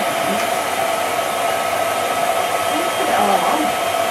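Cine film projector running, a steady whirring hiss with a constant faint whine, behind silent old film footage.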